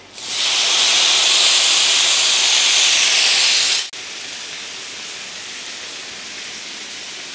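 Chicken kababs and vegetables hitting a hot sizzler plate: a loud hiss of steam and sizzling, which drops suddenly about four seconds in to a quieter, steady sizzle.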